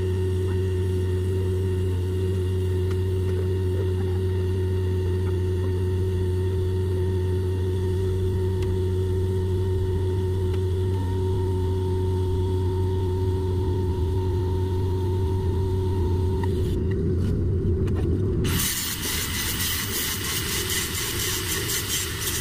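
A steady low machine hum, like an engine running, during TIG welding on stainless steel pipe. About three-quarters of the way through, the hum gives way abruptly to the harsh hiss of a small angle grinder working on the pipe.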